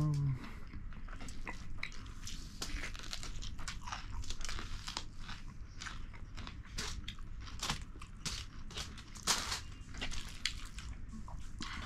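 Close-miked eating of rice and fish curry: chewing with many irregular short mouth clicks and crunches.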